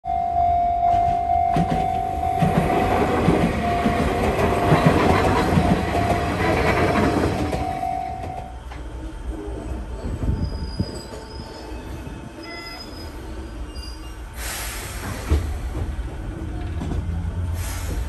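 Level-crossing warning bell ringing steadily while an Enoden electric train passes over the crossing, wheels and running gear loud; the bell stops about eight and a half seconds in. Then the quieter hum of an Enoden train car interior, with a short hiss about fourteen seconds in and another near the end.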